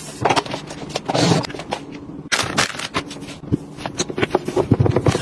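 Makeup bottles, tubes and containers being picked up and set down on a vanity desk: a quick run of clicks, taps and clatters, with rubbing on the desktop as it is wiped.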